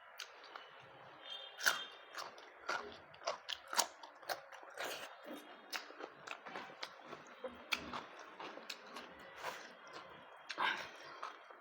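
A person chewing a rice meal close to the microphone, with wet mouth smacks and irregular crisp crunches and clicks.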